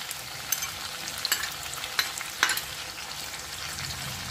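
Eel pieces, potatoes and ginger-garlic paste sizzling in oil in a metal kadai while a metal spatula stirs and scrapes them. The spatula clicks against the pan a few times over a steady frying hiss.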